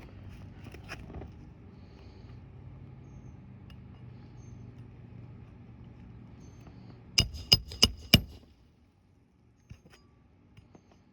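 Hammer driving a roofing nail: four quick ringing metal strikes in about a second, some seven seconds in, after a low steady hum.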